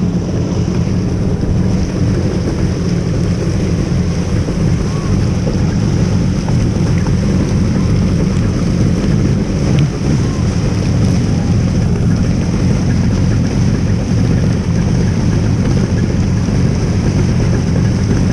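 Jet ski engine running steadily, with water and wind rushing over the camera microphone.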